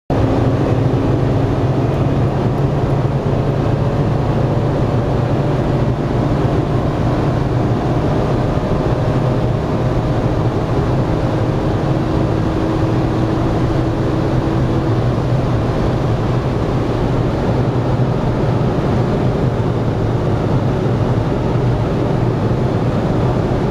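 BMW E46 M3's S54 straight-six engine droning steadily at a constant cruising speed, mixed with wind and tyre noise, heard from inside the cabin.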